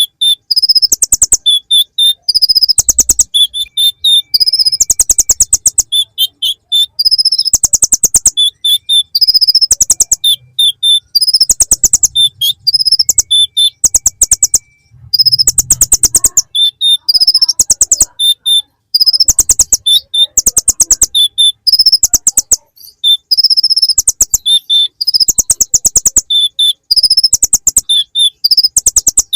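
Kolibri ninja (konin), a small sunbird, singing a high, fast song of rapid ticking trills about a second long, repeated with short gaps. The song is full of mimicked ciblek (bar-winged prinia) phrases.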